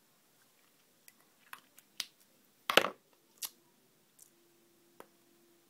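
Lipstick being applied and the tube handled: a scattering of soft clicks and lip smacks, the loudest just under three seconds in, then a faint steady hum over the last couple of seconds.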